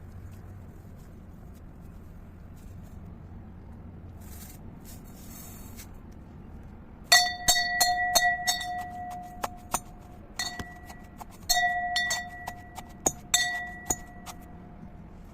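A quick run of sharp clinks, like a hard object tapped against glass, starting about halfway through. Each tap rings on with a clear, bell-like tone. There is a faint rustle shortly before.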